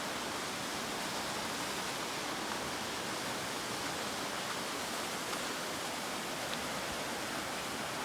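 Waterfall's steady rush of falling water, an even, unbroken roar.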